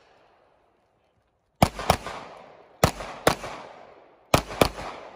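Pistol fired six times in three quick pairs of double-taps, each crack trailing off in an echo.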